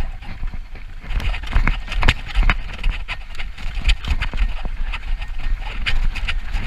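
Mountain bike clattering down a rough, rocky dirt trail at speed: a quick, irregular run of knocks and rattles from the bike over the bumps, over a steady low rumble of wind on the camera microphone.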